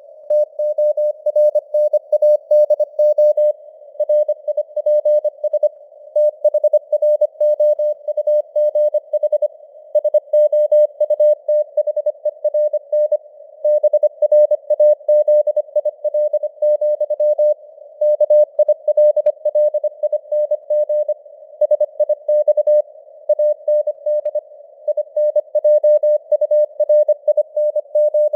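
Morse code (CW) sent at 25 words per minute: a single steady mid-pitched beep keyed on and off in quick dots and dashes, over a narrow hiss of simulated radio noise, with the signal strength fading up and down (QSB).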